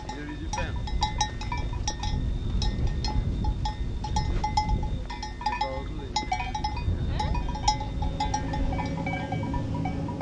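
Bells on grazing livestock clinking irregularly, over wind rumble on the microphone.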